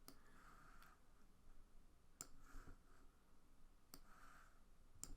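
Near silence with a few faint, sharp clicks of a computer mouse, about five spread unevenly across the few seconds.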